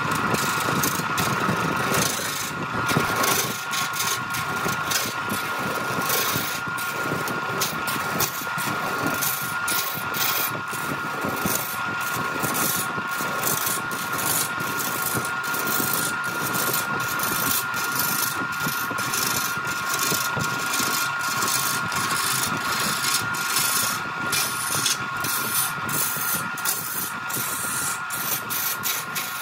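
Wood lathe running with a steady high motor whine, over a rough scraping noise dotted with many quick irregular ticks.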